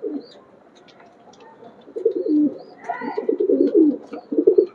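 Domestic pigeons cooing, low repeated warbling coos that start about two seconds in and go on to the end, with faint high chirps scattered through.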